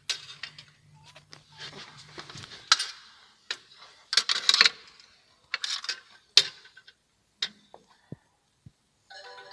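Irregular clicks, small metallic clinks and rustles of hands and tools handling parts around a car engine, with a low steady hum through the first three seconds or so.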